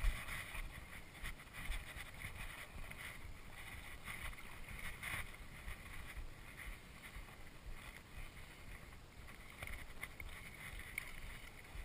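Steady wind and water noise with a low rumble, broken by a few faint clicks and knocks.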